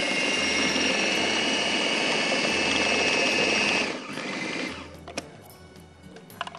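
Electric food processor motor running steadily with a high whine while blending raw chicken mince; it stops about four seconds in, followed by a couple of light clicks.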